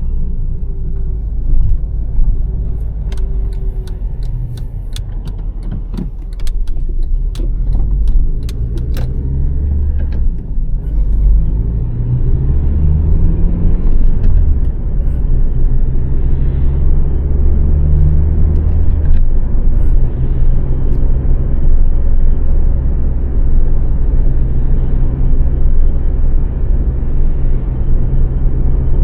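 2006 Honda Civic's 1.8-litre four-cylinder engine running on the move over road noise, its pitch rising and falling with speed and gear changes. A cluster of sharp clicks and rattles comes a few seconds in.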